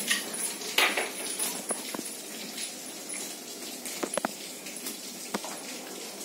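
Young Great Dane walking about on a tiled floor: a few scattered clicks and taps of its paws and claws.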